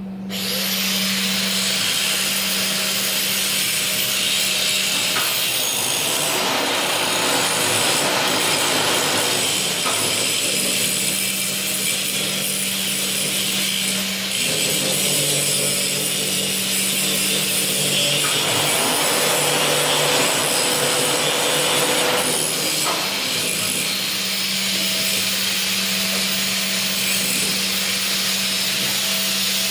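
Angle grinder grinding on a steel square tube: a steady harsh grinding over the motor's hum, which dips lower in pitch for a few seconds in the middle as the disc is pressed harder.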